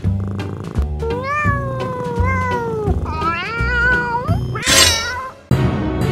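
Cat meowing: two long drawn-out meows that waver in pitch, then a brief harsher cry, over background music with a steady beat.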